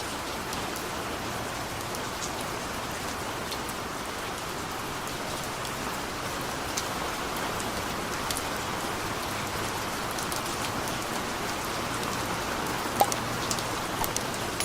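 Steady rain falling on a surface, an even hiss with scattered individual drips, a few sharper drips near the end.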